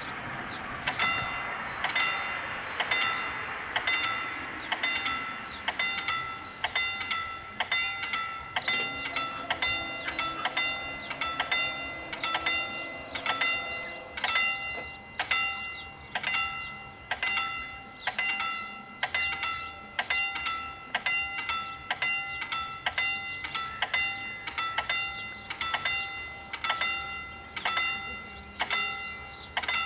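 Electric level-crossing warning bells ringing over and over in clear repeated strikes, roughly one to two a second, as the crossing closes. A faint low hum runs alongside from about nine to fourteen seconds in while the barriers lower.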